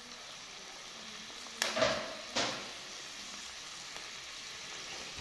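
Sliced red onions sizzling steadily in hot oil in a stainless steel frying pan, early in frying. Two sharp knocks break in, about a second and a half and about two and a half seconds in.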